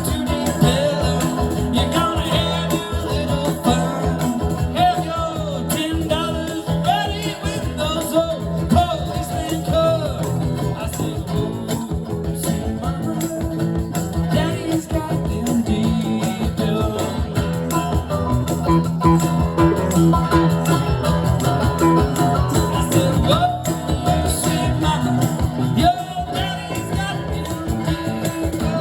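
Live blues-rock band playing an instrumental passage, with guitar over drums and a shaker or tambourine.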